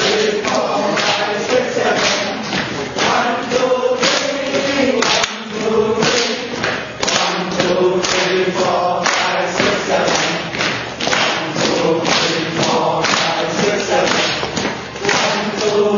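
A group of people clapping their hands in a steady rhythm for the four-beat clapping exercise, while voices chant the count together over the claps.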